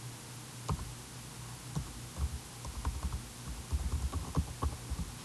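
Computer keyboard being typed on while a password is entered: single key clicks at an uneven pace, sparse at first and coming faster in the second half.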